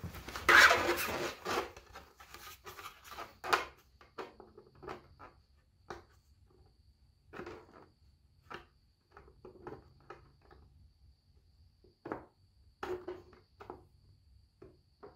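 3D-printed PLA plastic parts being handled and rubbed: a denser stretch of rubbing in the first second or so, then scattered short scrapes and light knocks at irregular intervals.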